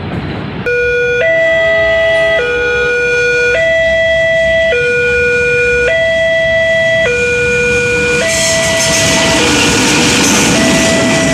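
Electronic level-crossing warning alarm sounding, alternating between two tones about every second, the warning that a train is approaching. It starts abruptly about a second in, and a hissing noise builds under it over the last few seconds.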